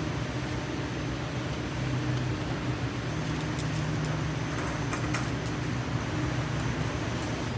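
Steady low hum and rumble of a large warehouse store, with a loaded shopping cart rolling over the concrete floor and a few light rattles and clicks about halfway through.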